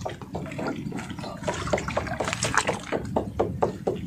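Oysters being knocked loose and gathered from a bamboo post in shallow seawater: a quick series of sharp shell clacks and knocks, several a second, with water sloshing.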